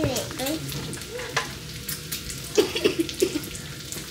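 Pancake batter sizzling on a hot griddle, a steady fine crackle of small pops.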